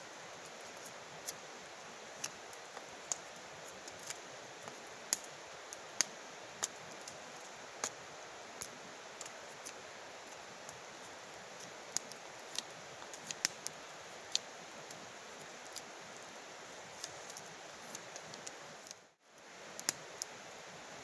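Irregular sharp clicks and crackles scattered over a steady hiss, a few a second at most. The sound drops out briefly near the end.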